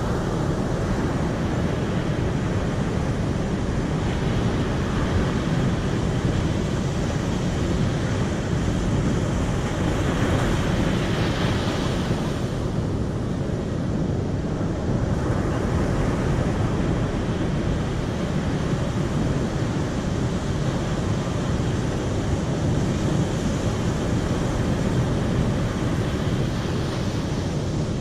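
Steady rushing of water, with a brief brighter swell about ten to thirteen seconds in.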